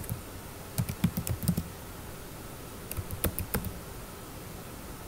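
Typing on a computer keyboard: two quick runs of keystrokes, one about a second in and another about three seconds in, with a short pause between.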